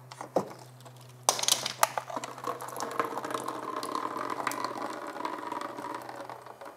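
Half-inch water supply pipe being cut: a steady scraping, grinding sound full of small clicks starts about a second in and dies away near the end, after a couple of light knocks at the start.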